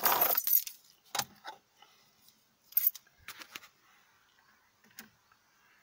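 Handling noise in a car's cabin: a brief rustle at the start, then scattered light clicks and rattles.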